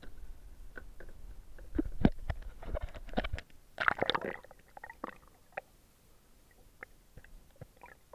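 Camera in a waterproof housing plunged into the sea: rumbling and knocks from handling, then a burst of splashing and bubbling as it goes under about four seconds in, followed by muffled underwater quiet with occasional small clicks.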